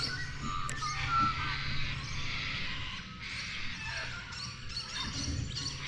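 A flock of corellas and cockatoos screeching continuously in a dense, harsh chorus, over a low steady hum.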